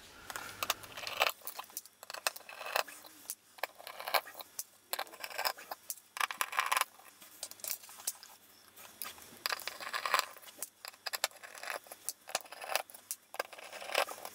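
Hand screwdriver undoing small screws in a metal electronics module frame: irregular metallic clicks, scrapes and clinks.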